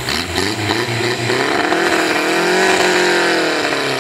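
Competition hot saw, a chainsaw driven by a car or motorbike engine, revving hard: the engine pitch climbs steadily to a peak about two and a half seconds in, then drops away near the end.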